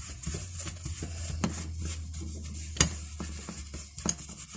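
Handling of a steel pipe wrench while wiping on French polish: paper towel rubbing over the metal, with light metallic clinks and two sharper knocks, about a second and a half and just under three seconds in. A low steady hum underneath fades out about three seconds in.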